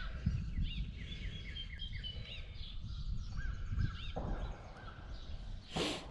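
Birds calling over and over, short up-and-down chirps, over a low rumble of handling noise, with one sharp clatter near the end.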